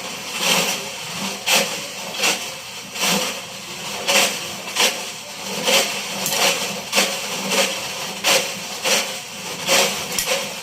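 Assorted metal objects tumbling in the drum of a running Electrolux washing machine: irregular clanks and rattles about one to two a second, over the steady noise of the machine.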